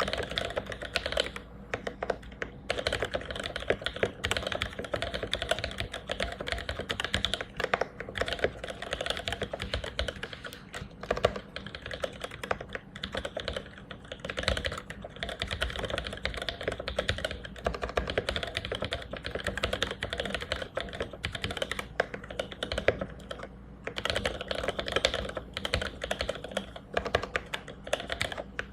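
Steady, fast typing on a mechanical keyboard with lubed vintage Cherry MX Black linear switches and GMK keycaps: a dense run of keystrokes, broken by a few brief pauses.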